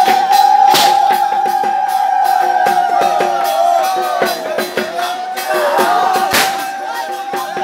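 Music with a long held, wavering high tone over quick shorter notes, struck through by sharp crashes twice, about a second in and near the end; crowd voices underneath.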